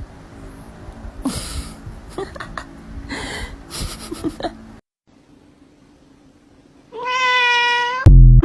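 A cat meowing once, a long call held about a second, near the end; a few seconds of short scuffling noises come before it. A loud thump follows right after the meow.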